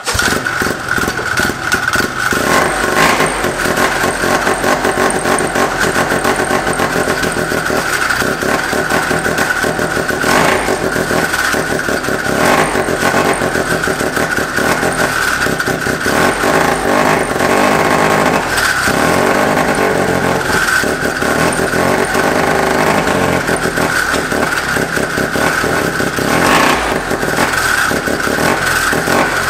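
Arctic Cat 303 single-rotor Wankel engine catching and running, uneven, with brief surges now and then. It is running, but not right, on a carburetor that is not yet dialled in.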